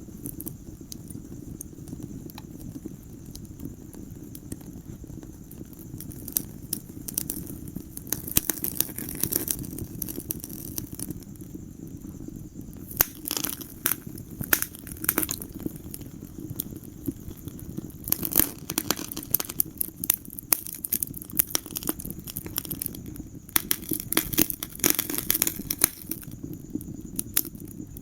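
Wood fire in a fireplace crackling: a steady low rush of flames under irregular sharp pops and snaps, which come thick in clusters several times.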